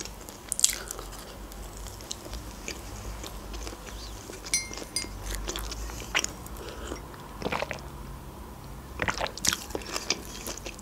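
Close-miked eating sounds: a person chewing and biting food, with scattered crisp crunches and mouth clicks, and a sip from a mug partway through.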